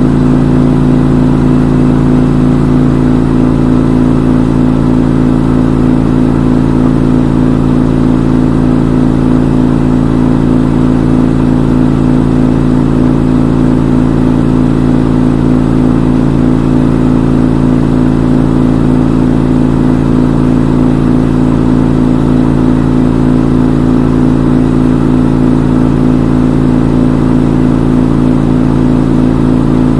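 Front-load washing machine in its spin cycle, the drum spinning at a steady high speed with an even, pitched motor hum that does not change.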